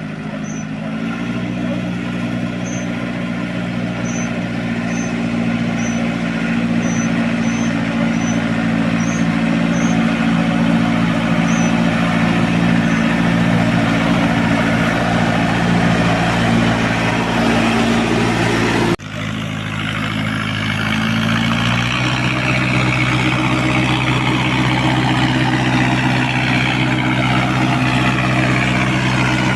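John Deere 5078 tractor's diesel engine running through a straight-pipe exhaust, a steady deep drone. Its pitch steps up slightly about a second in; the sound breaks off abruptly about two-thirds of the way through, then resumes and steps up again a couple of seconds later.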